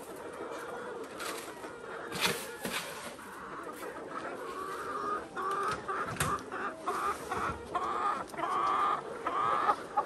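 A large flock of free-range chickens clucking, the calls growing busier and louder over the second half, with a few sharp knocks in between.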